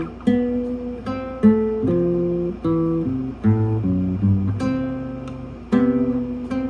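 Acoustic guitar played as a plucked run of single notes and chords, each note left to ring before the next is picked, with the pitch changing every half second or so.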